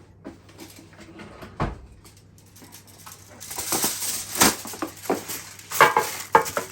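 A plastic bag of frozen chicken pieces being handled and torn open: a single knock about a second and a half in, then crinkling and rustling with small clatters that grows louder in the second half.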